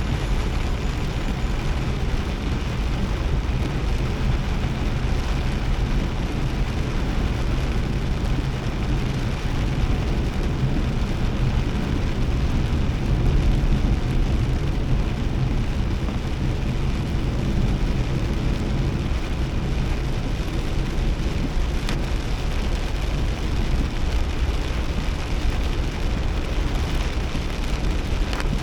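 Steady in-cabin drive noise of a Nissan Kix kei SUV: a low engine and road rumble, with heavy rain on the car.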